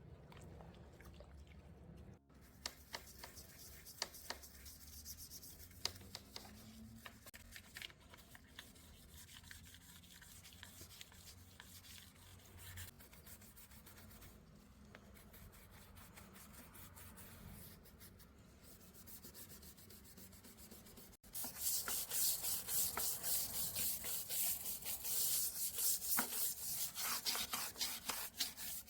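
Window being wiped and scrubbed during cleaning: soft rubbing with a few light clicks at first, then, after a sudden cut about 21 seconds in, louder, rapid back-and-forth scrubbing strokes.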